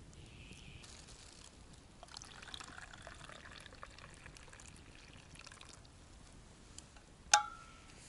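Liquid poured from a stainless-steel vacuum flask into a metal cup, a steady trickle lasting a few seconds. Near the end comes a single sharp clink that rings briefly, the loudest sound.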